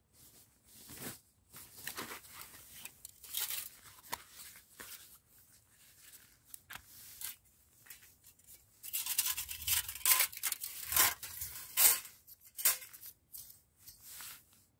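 Close, crisp rustling and scratching of hands working through dry pine needles and forest litter on the ground, a string of short scrapes that grows busier and louder in the second half.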